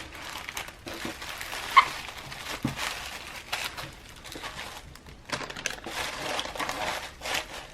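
Packaging crinkling and rustling as it is handled, in irregular crackly bursts, with one sharp tap about two seconds in.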